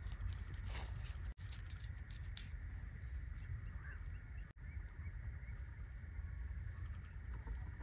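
Faint scrapes and soft clicks of paneer and vegetable pieces being pushed onto a metal skewer over a pot, against a steady low outdoor rumble.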